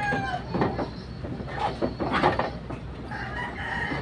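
A rooster crowing. The tail of one crow falls away in the first half second, and another long, held crow starts about three seconds in, with scattered knocks and rustles between them.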